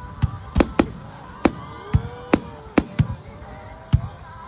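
Aerial firework shells bursting in quick, irregular succession: about eight sharp bangs, each with a short echoing tail, over a low rumble.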